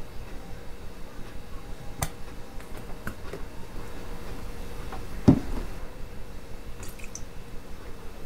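Wet squishing of food being handled, with a few light clicks and one louder knock about five seconds in.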